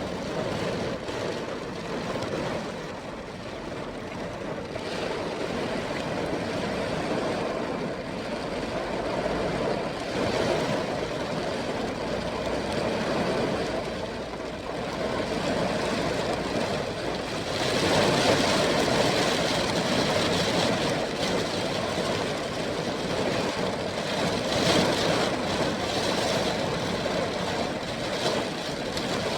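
Heavy rain and wind in a storm: a steady, loud rushing noise that swells in gusts, louder a little past halfway and again later on.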